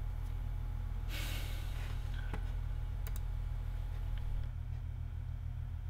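Steady low room hum; about a second in, a breathy exhale through the nose, then a few sharp computer clicks a little after two and three seconds in as a laptop catalogue is browsed.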